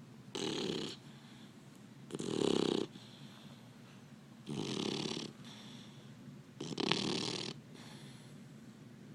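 Labrador retriever puppy snoring in its sleep: four snores about two seconds apart, each under a second long, with fainter breaths between them.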